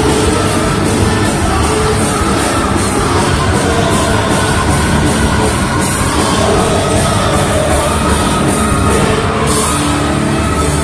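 A rock band playing loud live music with guitar, drums and singing, the drummer striking the cymbals in a steady quick beat that eases off about nine seconds in.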